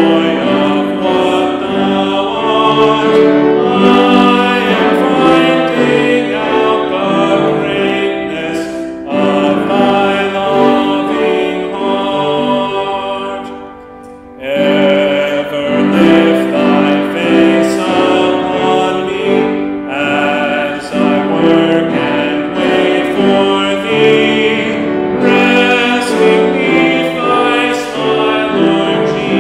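A man singing a hymn solo in a full, operatic voice, in long held phrases, with a short break about halfway through.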